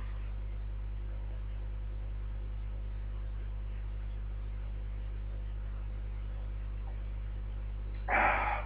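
Steady low electrical mains hum in the recording, with a short louder breathy burst near the end.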